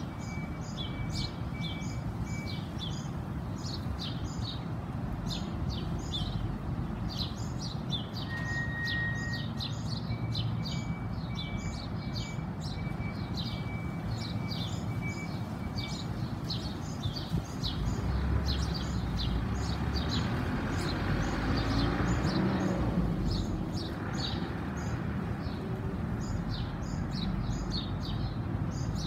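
Many small birds chirping in quick, overlapping calls, over the low rumble of wind buffeting the microphone. A louder rush swells for several seconds past the middle, then eases.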